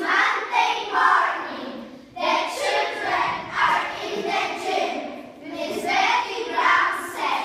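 A group of children singing together in short, rhythmic phrases.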